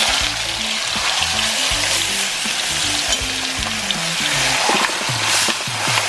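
A pork roast searing in about four tablespoons of hot oil in a Dutch pot, sizzling and crackling steadily as it browns. Background music plays underneath.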